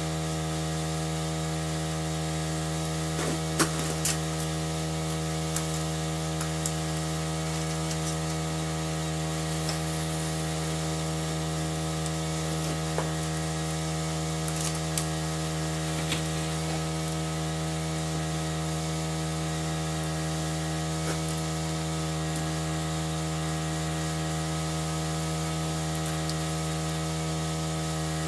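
A steady machine hum at one unchanging pitch, with a few light taps and clicks over it, the sharpest about four seconds in.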